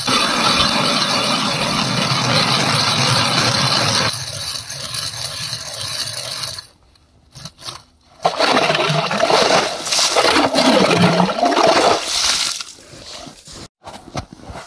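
Hand ice auger boring a hole through river ice: the blades cut with a steady grinding scrape, in two spells with a brief near-silent pause about seven seconds in.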